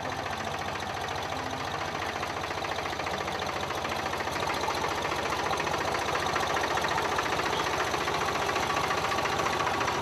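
Compact farm tractor's engine running steadily, a close, even clatter with a fast low pulse.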